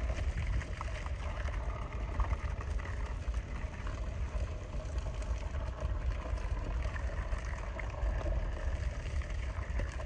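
Water gushing from the open end of a black plastic water supply pipe and splashing onto a flooded trench, with a heavy low rumble underneath.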